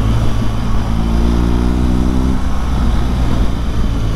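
BMW R1200GS Adventure's boxer-twin engine running at road speed, heard from the rider's seat with wind noise over it. The engine note rises slightly, then eases off about two and a half seconds in.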